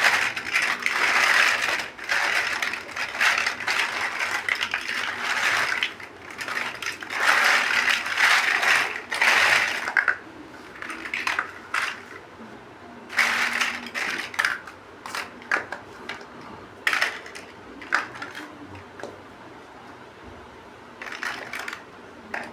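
Small plastic building bricks clattering and clicking as they are handled. There are long stretches of dense rattling in the first half, then mostly separate single clicks.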